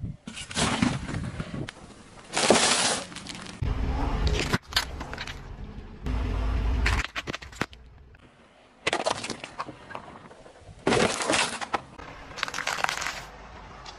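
A car tyre rolling over and crushing a series of objects in turn: an apple, a drink pack that bursts and sprays, and chocolate-coated ice-cream cones. Each gives a short crunch, pop or splat, several in all, with a low rumble of the car rolling in between.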